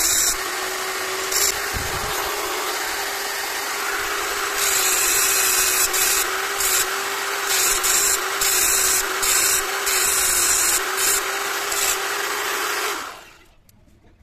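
Corded electric drill fitted with a small abrasive grinding wheel running steadily. A hacksaw blade is pressed against the wheel in a series of short, harsh grinding spells, cutting notches into the back of the blade. The drill stops about a second before the end.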